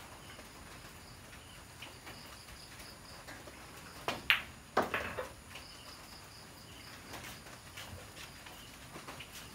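A pool shot: the cue tip strikes the cue ball, the balls meet with a sharp clack, and a few knocks follow as the yellow object ball drops into a pocket. Insects chirp faintly and steadily in the background.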